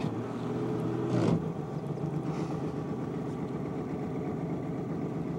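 A boat motor starts up suddenly and runs at a steady hum, a little louder for about the first second before settling.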